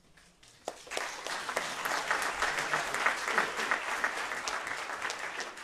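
Audience applauding, rising quickly a little under a second in, holding steady, and fading out near the end, in response to a speaker finishing his remarks.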